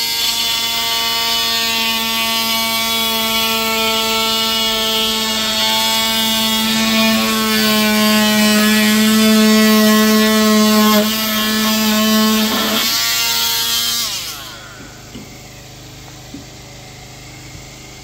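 Corded handheld power tool cutting through drywall: a steady high motor whine with gritty cutting noise. About thirteen seconds in it is switched off, its pitch sliding down as it winds to a stop.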